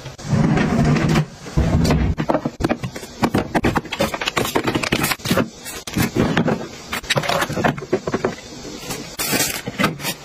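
Plastic clattering and rustling from handling a wall-mounted plastic tissue dispenser: a soft packet of tissues is pushed into its slot with many irregular knocks and clicks, and a short rustling hiss comes near the end as a tissue is pulled out. A few heavy thuds come in the first two seconds.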